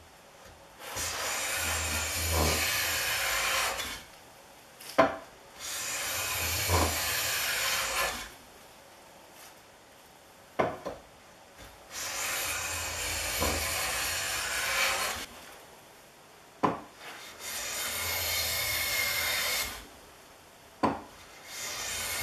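Brattleboro No. 303 Steers patent hand plane taking about five long strokes along the edge of a poplar board, each a rasping hiss of two to three and a half seconds. Sharp knocks come between the strokes.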